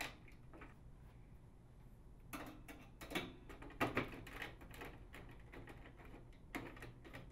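3/8-inch nut driver tightening an acorn nut: faint runs of quick, light metallic clicks and rattles, thickest about two to four and a half seconds in, with another short run near the end.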